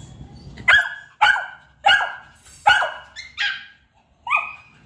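Dog barking: about six short, sharp, high-pitched barks, roughly one every half to one second.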